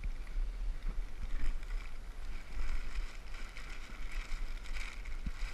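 Wind rumbling on the microphone, with rustling and light knocks as someone moves about in an inflatable boat.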